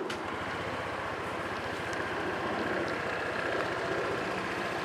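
A 2014 Honda PCX (JF56) scooter's 125 cc single-cylinder engine starts at the push of the starter button and catches at once. It then idles steadily with an even pulse.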